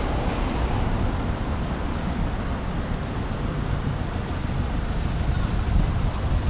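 Steady rumble of wind and road noise from riding a bicycle along a city street, with car traffic around.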